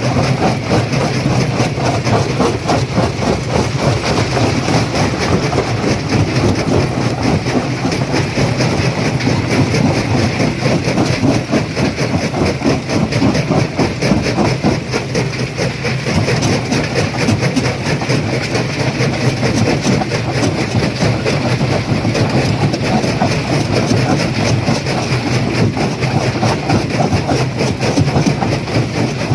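Stone crusher running and crushing rock: a steady machine hum under a dense, continuous clatter of breaking and tumbling stone.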